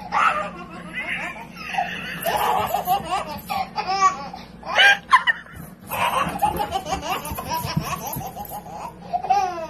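Toddler laughing hard in repeated bursts.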